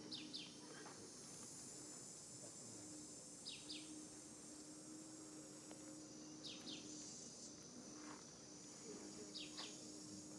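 Faint outdoor ambience: a steady high insect drone, and a bird repeating a quick pair of short falling notes about every three seconds, over a low steady hum.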